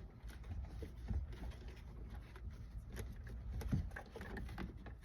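Scattered light clicks and rustling of hands handling plastic console trim and wiring.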